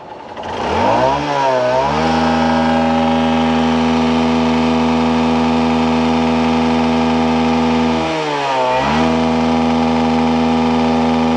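A Hero motorcycle's single-cylinder engine revved hard from idle at full throttle, climbing in pitch over about two seconds and then held at a steady high pitch. The revs dip briefly and climb again about eight seconds in. This is a free-rev test at the exhaust, checking for black smoke after the fuel mixture was tuned for better mileage.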